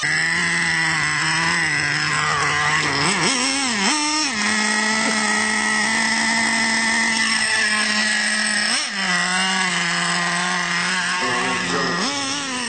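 Traxxas Revo 3.3's small nitro engine running at a steady high pitch, with brief revs up and down about four and nine seconds in.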